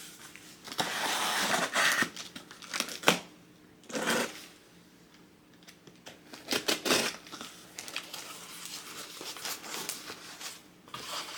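A product box being unboxed by hand: packaging rustling, crinkling and tearing in uneven bursts, with a sharp click about three seconds in.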